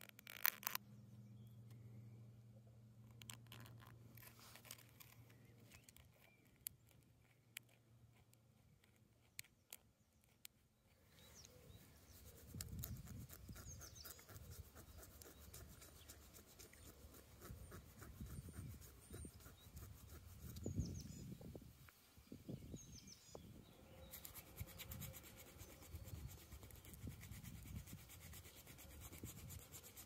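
Faint scratching and small clicks of a deer-bone sliver being worked against a stone slab. A low hum fades out in the first few seconds, and about a third of the way in a low, uneven rumble joins the scratching.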